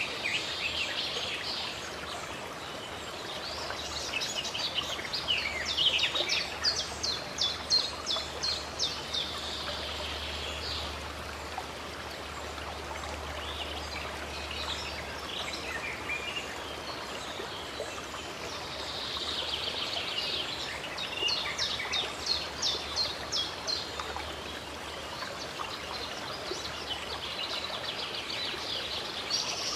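Songbirds singing over the steady rush of running water. Two spells of rapid, repeated high chirps stand out, the first about four seconds in and the second a little past the middle.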